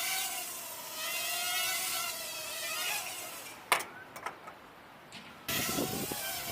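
A motor's steady whine, wavering slightly in pitch, over a loud rushing hiss. A sharp click comes a little past halfway, and the sound changes abruptly near the end as another recording cuts in.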